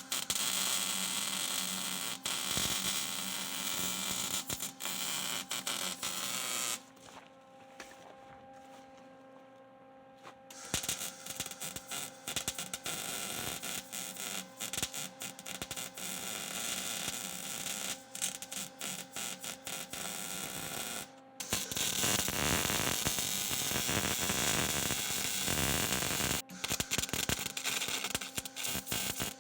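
Electric arc welding: a steady crackling, sputtering hiss, as a piece is welded onto the truck. It stops for a few seconds about seven seconds in, then starts again, with short breaks near the end.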